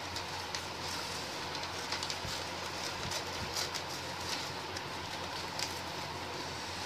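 Steady background hiss with a low hum, broken by faint scattered ticks and rustles of newspaper being handled.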